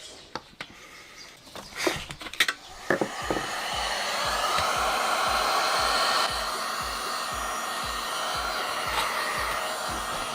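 A few sharp clicks and knocks, then a heat gun starts about three seconds in and blows steadily with an even airy hiss.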